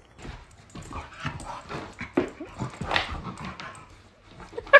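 A dog vocalising in short, irregular sounds, some sliding up in pitch.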